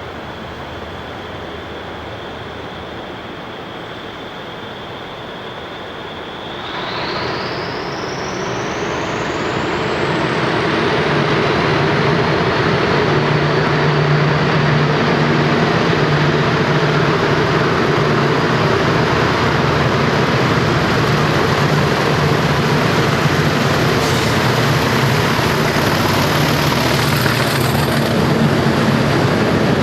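English Electric Class 40 diesel locomotive's 16-cylinder turbocharged engine on low power, with a steady turbocharger whistle. About six seconds in the power is opened up: the turbo whistle sweeps sharply upward in pitch and the engine grows much louder. It then runs hard at full power, a loud throaty thrash over the high whistle.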